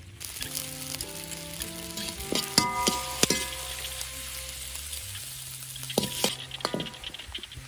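Chilies, shallots and lemongrass sizzling in hot oil in a metal wok while being stir-fried. A metal ladle strikes the pan about four times with a ringing clink.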